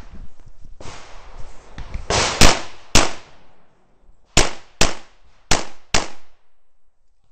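Six .45 ACP shots from a 1911 pistol, fired in three quick pairs with short echoing tails after each crack.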